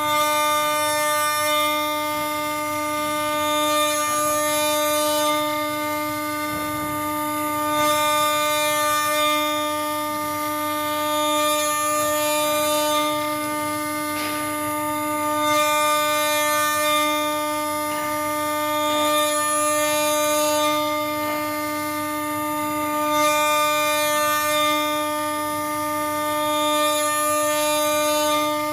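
Spindle of a small 4-axis CNC engraving machine running with a steady high whine, while a hiss swells and fades about every four seconds.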